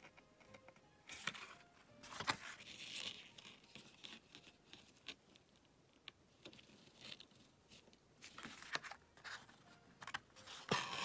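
Gold embroidery thread being drawn through needle holes in a paper card, with the card stock rustling and scraping as it is turned over; a series of short scratchy rustles, with a longer, louder rustle near the end.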